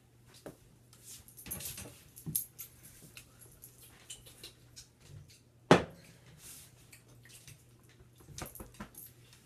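Scattered handling noises of people moving about a room: soft knocks, clinks and rustling, with one sharp knock a little before the six-second mark.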